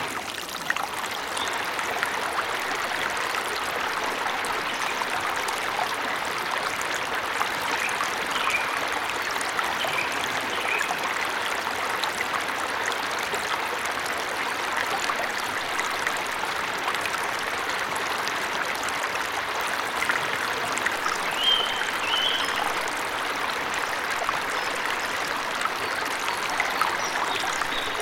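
Steady rushing of water from a forest waterfall. A few short, high bird chirps come through about a third of the way in and again about three quarters of the way through.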